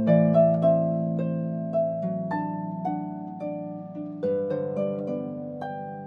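Instrumental background music: plucked, harp-like notes that ring and fade, over held chords, a new note every half second or so.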